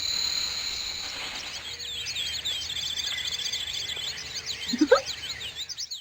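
Outdoor morning soundscape effect: birds chirping and trilling over a steady high hiss and tone. A single loud rising whistle-like glide comes about five seconds in, and the whole sound cuts off suddenly at the end.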